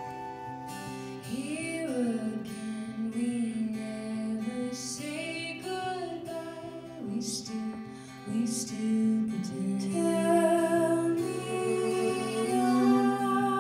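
Live folk song: female voices singing over acoustic guitar, with a held chord underneath. One voice carries the line at first, and more voices join in harmony near the end.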